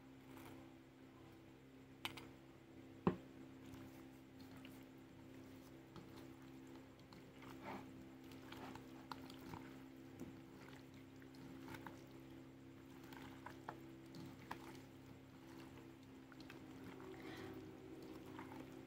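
Faint, soft squelching of hands mixing and rubbing salt and pepper into raw chicken pieces in a bowl, with a sharp click about three seconds in, over a steady low hum.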